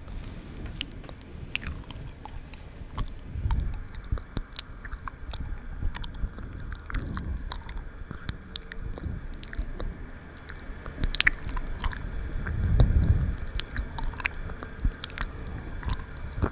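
ASMR mouth sounds close to the microphone: many quick wet clicks and smacks. The microphone is being brushed, giving low rumbling swells that are strongest about three and a half and thirteen seconds in.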